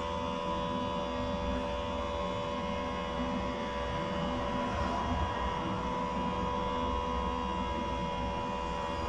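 Steady electrical hum with several steady tones over a low rumbling haze.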